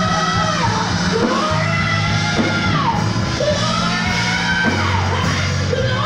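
Live gospel worship band with keyboard, electric guitar and drums playing under a lead voice that sings long held notes, each phrase sliding down in pitch at its end.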